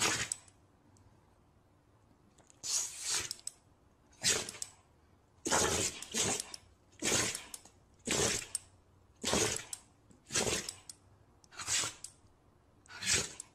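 A dog making a run of about ten short, breathy bursts through its nose and mouth, roughly one a second, some coming in quick pairs.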